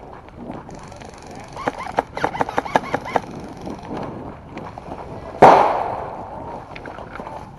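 A quick string of about ten airsoft gun shots, then a single loud bang that rings and fades over a second or so.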